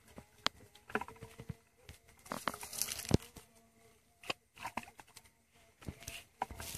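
Irregular wet squelches, small splashes and scattered sharp knocks of hands and feet working in shallow mud and water. The loudest is a single sharp knock about three seconds in.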